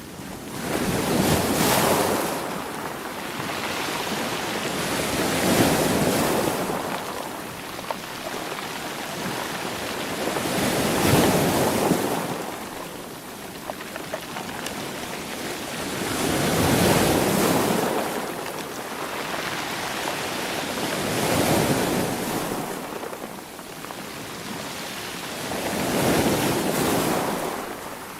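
Sea waves washing onto the shore, six swells in turn, each rising to a rushing peak and fading over a few seconds.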